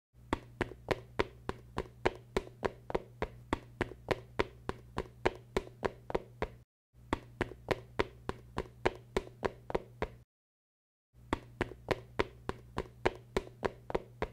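Rapid, evenly spaced sharp taps or knocks, about four to five a second, over a steady low hum. They come in three runs, each cut off abruptly into dead silence.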